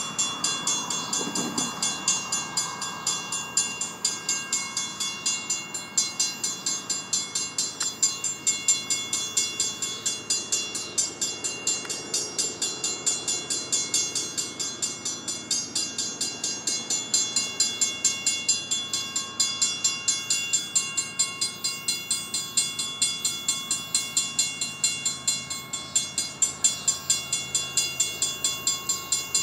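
Railroad grade-crossing bell ringing in a quick, even rhythm of strikes, each with a bright metallic ring. It signals that the crossing is active for an approaching train.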